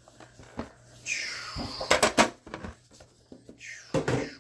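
Handling of a trading-card box and its metal tin: a scraping slide about a second in, a few sharp clacks around two seconds, and a knock near the end as the box is set down.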